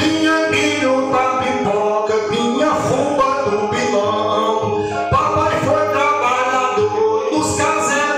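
A man singing a Northeastern Brazilian repente (cantoria de viola) verse, accompanied by two resonator-bodied Brazilian violas.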